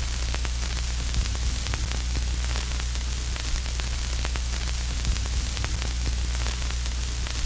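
Steady electrical static hiss over a low, constant electrical hum, with scattered faint crackling clicks: the noise of an audio line carrying no programme signal.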